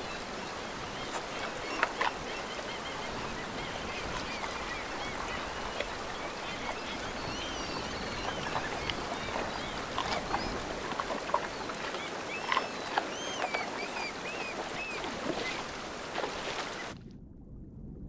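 River water rushing around a brown bear wading with a salmon, with a few sharp splashes and many short chirping bird calls over the water noise.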